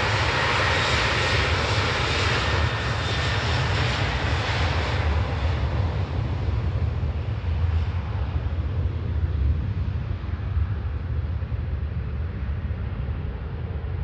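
Boeing 737-800's twin CFM56 turbofan jet engines running at high power on the runway. A high whine and hiss fade away about five seconds in as the aircraft rolls off into the distance, leaving a steady low rumble.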